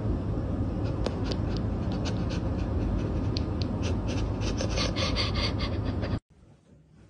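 Fur rubbing against a phone's microphone as a cat presses its head to it: a scratchy rustle with many small clicks over a steady low rumble. It cuts off abruptly about six seconds in.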